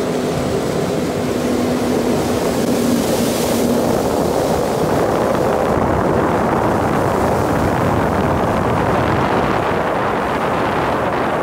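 Jet ski under way across shallow water: a steady engine note for the first few seconds, then a continuous rush of water and wind on the microphone.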